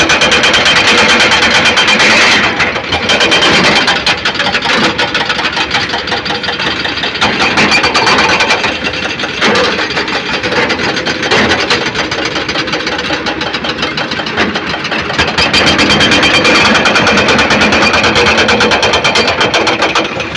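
Engine-driven construction machinery running steadily. It is louder for the first few seconds and again from about sixteen seconds in, and quieter in between.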